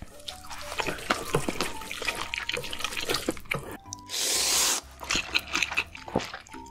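Close-miked eating sounds of fire noodles: chopsticks stirring and clicking through saucy instant noodles with wet, sticky sounds, then a loud slurp of a mouthful of noodles about four seconds in.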